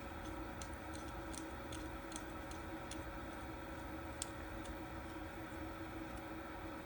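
Faint, irregular small clicks and ticks of a small screwdriver driving a tiny screw into an RC car's motor mount until it is countersunk, over a steady low hum.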